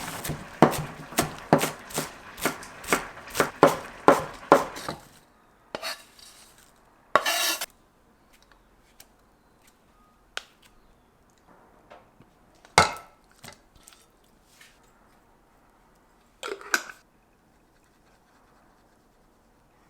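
Knife chopping on a cutting board in a quick, even rhythm of about two strokes a second for roughly five seconds, then scattered kitchen clicks, a short rustle and a single knock.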